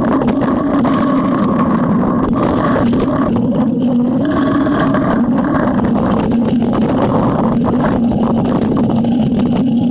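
John Deere backhoe's diesel engine running steadily at a constant pitch, pushing snow with an angle blade.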